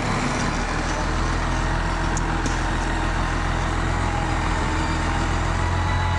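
Farm loader tractor's diesel engine running steadily at a low, even pitch, with a couple of faint light clicks a little after two seconds in.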